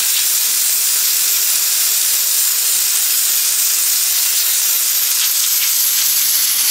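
Pressure washer wand spraying a narrow high-pressure jet of water onto brick pavers: a loud, steady hiss.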